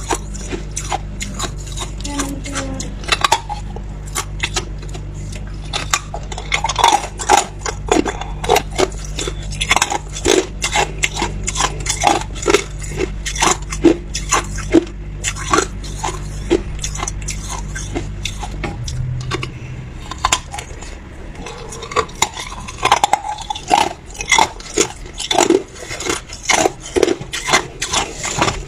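A person biting and chewing hard ice up close: a steady run of sharp crunches and cracks, two or three a second.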